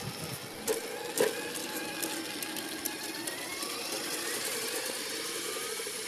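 3D-printed 4x4 RC scale car driving, with a steady mechanical whine and a higher whine that rises slowly in pitch as it gathers speed. There are two sharp knocks about a second in.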